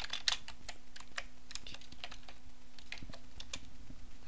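Computer keyboard being typed on: a run of irregular keystrokes as a customer code is entered, over a faint steady hum.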